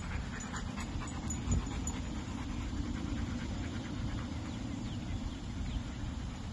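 German shepherd panting while walking on a leash, over a steady low rumble.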